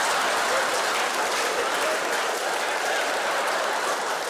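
Audience applauding, a steady crackling clatter of many hands with some voices mixed in, easing off slightly near the end.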